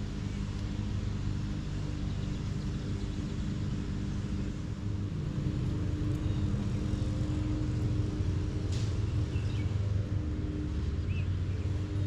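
A steady low engine hum with a constant pitch, with a few short bird chirps in the last few seconds.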